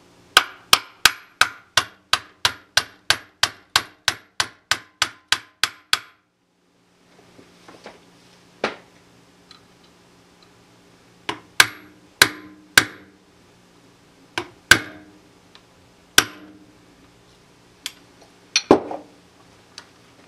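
Claw hammer tapping a trigger-group pin back through the steel receiver of a Savage/Stevens 820B pump shotgun: a quick run of about twenty light, even metal-on-metal taps, about three a second. After a short break come a handful of scattered sharp knocks and clicks.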